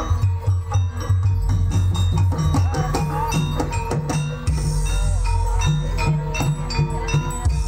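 Javanese gamelan music accompanying a barongan dance: metal keyed instruments play quick repeated notes over drums and a steady low drum pulse.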